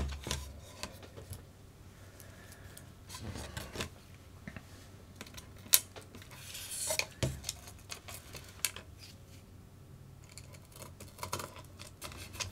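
Small RC kit parts being handled and fitted by hand: scattered light clicks and knocks of small plastic and metal pieces, with a short rustle a little past halfway.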